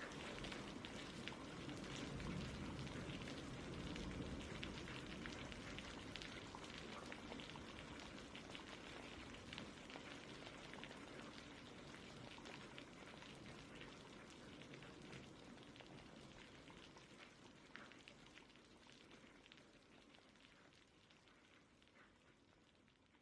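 Steady rain with many small drops pattering, fading out gradually toward the end.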